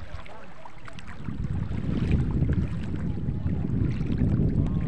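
Wind buffeting the microphone, a low rumble that grows louder about a second in, with faint light splashes of shallow water.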